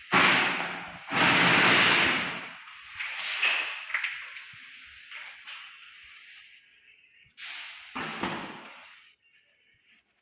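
Broom sweeping a dusty floor: a few long, loud swishing strokes, the longest about a second in and another near the end.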